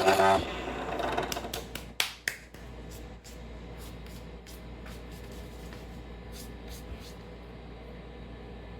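Vevor HS001 mini wood lathe's motor running with a steady whine, then cutting off less than half a second in. A low steady hum remains, with a scattering of sharp clicks and taps, the loudest about two seconds in.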